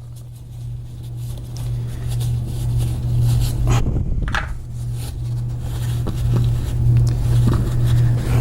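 A steady low mechanical hum, like a motor running, that swells and eases, with a couple of light metallic clicks from small lock parts being handled about four seconds in.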